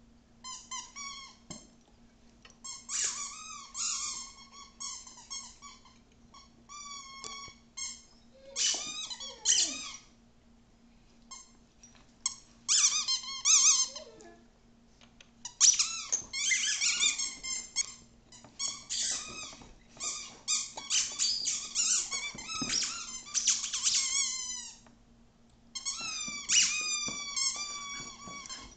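A squeaky dog toy squeaked over and over as a Rhodesian Ridgeback chews it: bursts of quick high-pitched squeaks with short pauses between them, almost without a break through the middle stretch.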